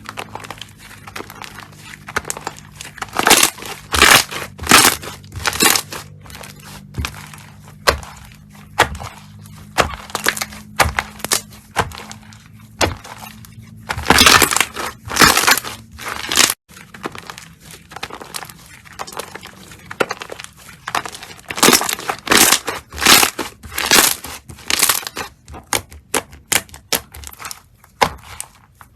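Slime being pressed and squished by hand, giving irregular runs of sharp crackling pops.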